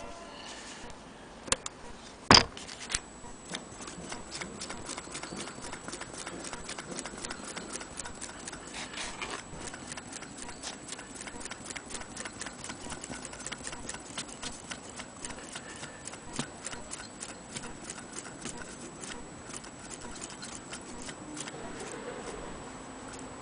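Antique Willcox & Gibbs chain-stitch sewing machine running and stitching fabric: rapid, even mechanical clicking of the needle mechanism. A single sharp knock about two seconds in, just before the steady stitching rhythm begins.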